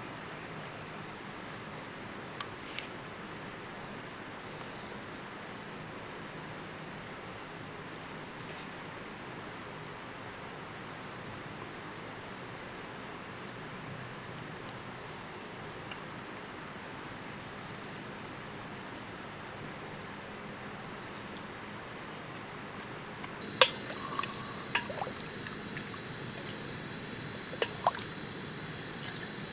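Creek water running steadily, with a steady high-pitched hum over it. Near the end come a few sharp clicks or knocks, the loudest about 24 seconds in.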